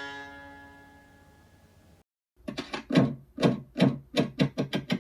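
An NHL goal horn's held, many-harmonic blast fading out over about two seconds. After a brief silence, a run of sharp struck or plucked notes starts about two and a half seconds in and quickens, louder than the fading horn.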